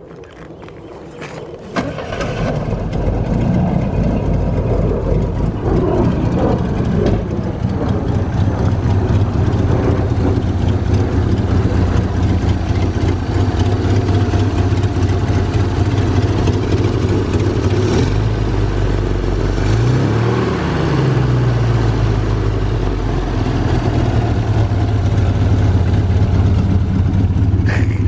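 1968 Toyota Corona 1600S's four-cylinder engine cranking and catching about two seconds in, then running steadily at idle. A short rev rises and falls about two-thirds of the way through before it settles back to idle.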